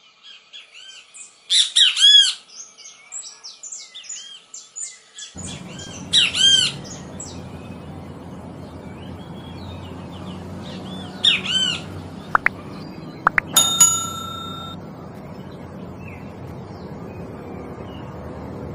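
Great kiskadee (bem-te-vi) calling: loud bouts of rising-and-falling notes about two, six and eleven seconds in, among many softer chirps. A brief steady ringing tone sounds about fourteen seconds in, over a constant background hiss that starts about five seconds in.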